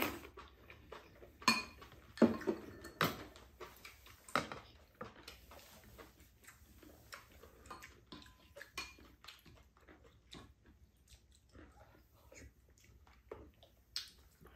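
Eating at a table: chopsticks and spoons clicking and scraping against bowls and a pan, with noodles being slurped. The louder clinks come in the first few seconds, then fewer and quieter ones.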